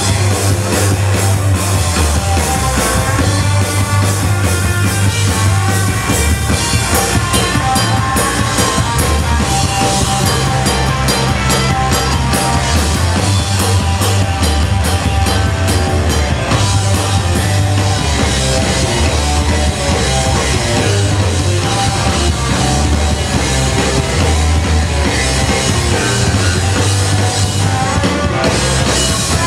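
A live rock band playing loud and without a break: drum kit and electric guitars.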